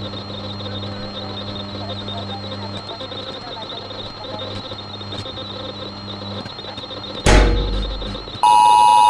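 Walkie-talkie radio static with a low hum. About seven seconds in comes a sudden loud burst of static, then near the end a loud steady electronic beep: the alert tone that precedes an emergency broadcast.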